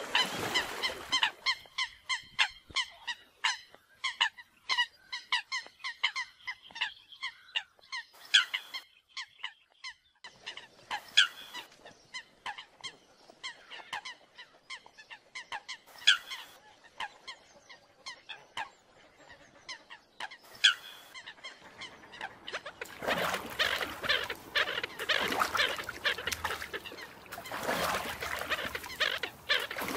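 American coots calling with short, nasal honking notes. A quick series of notes comes first, then scattered single calls, and near the end the calling turns louder and denser over a rough, noisy background.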